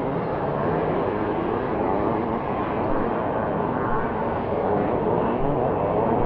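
Several 500 cc two-stroke motocross bikes racing on a dirt track, their engines overlapping in a steady, loud drone with the pitch wavering as riders work the throttles.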